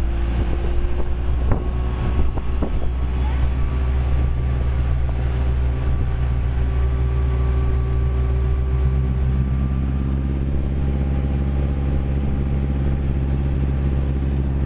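Motorboat engine running steadily under way, with wind and rushing water. A faint whine rises slowly in pitch, and the engine note thickens about ten seconds in.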